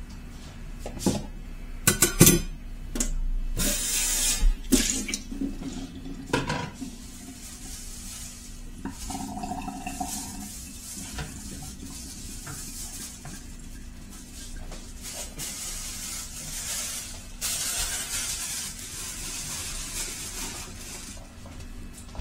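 Kitchen tap running in spells as vegetables are rinsed at the sink, with sharp clinks and knocks of dishes and utensils on the counter, most of them in the first few seconds.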